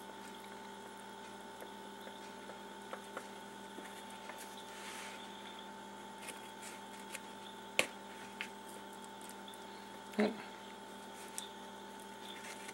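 A table knife slicing through a baked sweet potato pie, with a few soft clicks and knocks as the blade works through the crust and meets the pan, the clearest just before 8 s and about 10 s in. A steady faint hum runs underneath.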